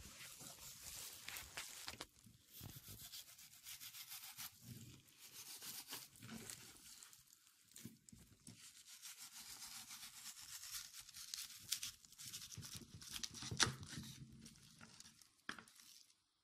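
Fillet knife slicing through raw trout and scraping along a plastic cutting board: faint, uneven rasping strokes with small clicks, the sharpest about three-quarters of the way through.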